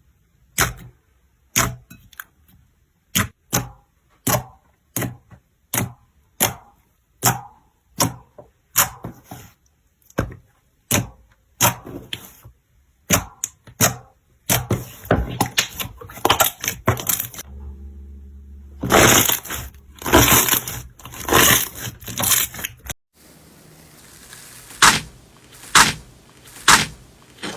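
Slime being handled, with a run of sharp crackling pops, about one or two a second, that grow denser and louder in the middle and then go back to spaced single pops.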